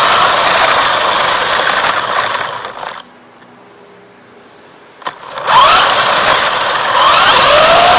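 WLToys 144001 RC buggy's electric motor and drivetrain whining as the car drives on a 2S LiPo. The sound fades out about three seconds in and stays low for about two seconds. It comes back at about five and a half seconds with a whine that rises in pitch as the car speeds up again.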